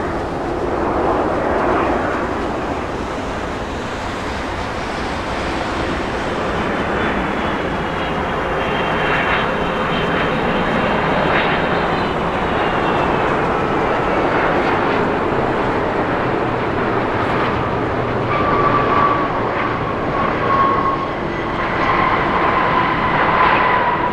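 Airbus A330-323 airliner's Pratt & Whitney PW4000 turbofans passing at the runway: a steady jet rush with a faint whine that slowly falls in pitch around the middle, and a stronger high whine near the end.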